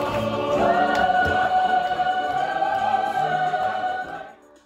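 A mixed-voice show choir singing a sustained chord. The chord steps up in pitch about half a second in, holds, and then dies away about four seconds in.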